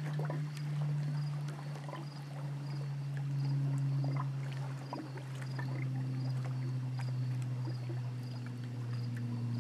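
Motorboat engine droning steadily, its pitch sinking slowly. A faint high chirp repeats about twice a second, with scattered small clicks.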